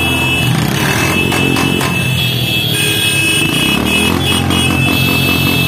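Many motorcycles running together at low speed in a dense procession, their engines blending into one steady mix, with steady high-pitched tones starting and stopping over it.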